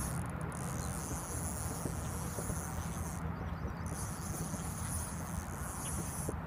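Steady outdoor background noise: a low rumble and a high, even hiss, with a few faint clicks and no clear single event.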